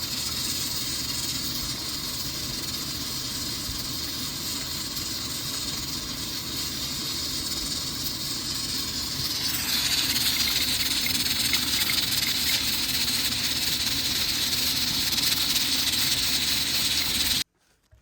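Steady hissing noise that grows louder and brighter about halfway through, then cuts off abruptly near the end.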